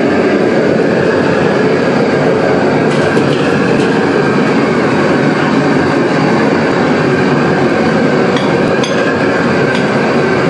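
Steady, loud roar of a restaurant wok range's gas burner, with a few light metal clinks from the ladle and wok.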